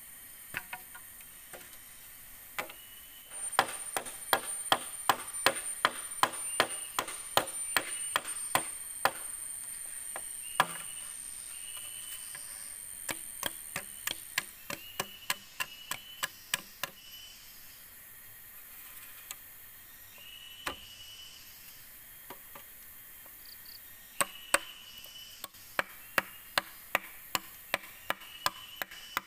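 A blade chopping at green bamboo poles: quick series of sharp strikes, about two a second, in three spells with pauses between. A steady high insect buzz runs under the first half, with short high chirps throughout.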